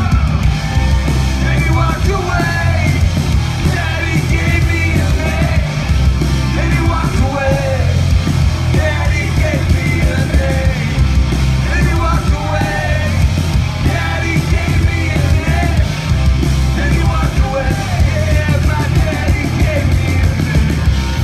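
Live rock band playing loud through the PA: electric guitars, bass guitar and drums, with voices singing and yelling over the music.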